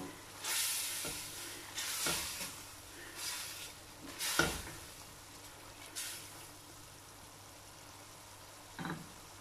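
Splashes of water hitting hot oil and onion-tomato masala in a stainless steel pot, each flaring into a short sizzle, about five times over the first six seconds, with a sharp clink among them. A faint steady sizzle follows, and a dull knock sounds near the end.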